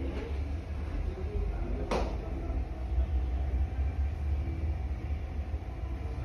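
A low steady rumble, with a single sharp click about two seconds in.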